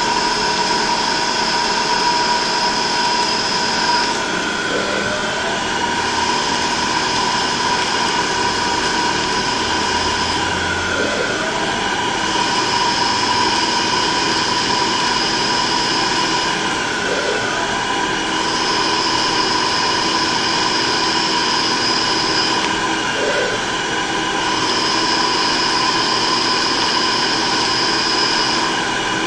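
CNC machine tool running a machining cycle: a steady mechanical whine of several held tones, with a high-pitched tone that runs for about four seconds, drops out for a moment, then returns, about every six seconds.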